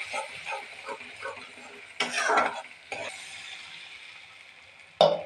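A spatula scraping and stirring a thick green saag paste in an aluminium kadhai over a sizzle of frying, about three strokes a second. About two seconds in, water poured into the hot pan gives a louder rushing sizzle, and a sharp knock comes near the end.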